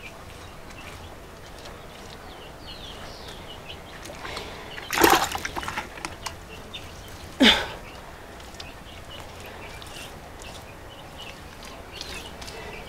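Bare hands working wet mud plaster and water on a mud stove: quiet wet smearing and trickling, with two louder wet splashes about five seconds in and again two and a half seconds later.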